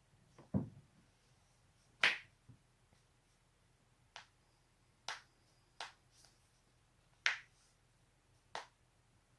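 Knee joints cracking: a string of about eight sharp pops at uneven gaps of roughly a second. The first, about half a second in, is a duller, lower crack.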